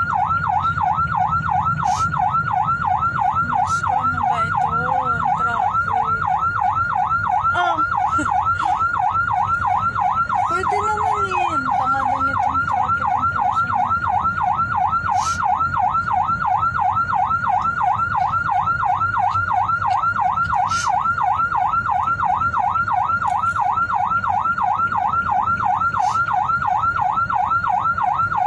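Emergency vehicle siren in a fast yelp, sweeping up and down several times a second without a break, over low engine and road rumble.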